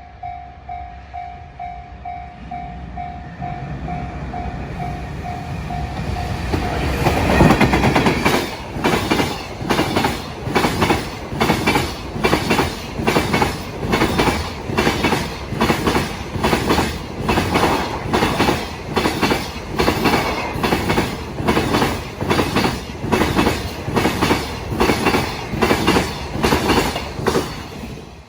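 A Japanese level-crossing bell rings in a quick, even beat. About seven seconds in, the EF210 electric locomotive arrives loudly at the head of the Fukuyama Rail Express container freight train. Its wagons' wheels then clack over the rail joints in a steady rhythm, about one and a half clacks a second, for the rest of the passage.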